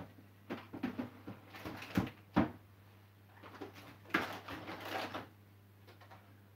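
Kitchen things being handled on a countertop: a run of knocks and clicks, two of them sharper about two seconds in, then a longer rustling clatter about four seconds in. A steady low hum lies under it all.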